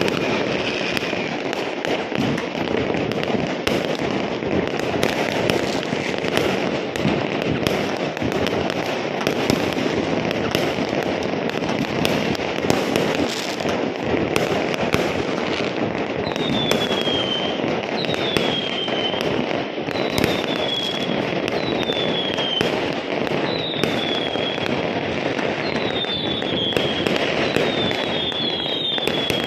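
Many fireworks going off at once across a city: a dense, unbroken crackle of bangs and pops. From about halfway through, a short falling whistle repeats roughly once a second.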